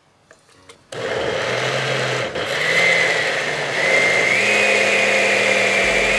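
Chrome-base Oster blender with a glass jar switched on about a second in and running steadily, puréeing cooked tomato, onion and pepper; its motor whine steps up slightly in pitch partway through.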